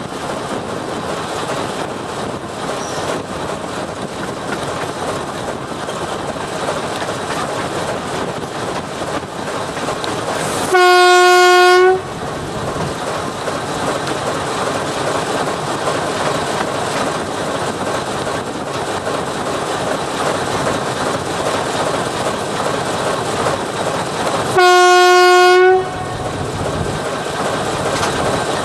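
TEM2 shunting diesel locomotive sounding its horn in two steady one-second blasts about fourteen seconds apart, loud enough to overload the recording. Between them, the locomotive's diesel engine and wheels on the rails run steadily.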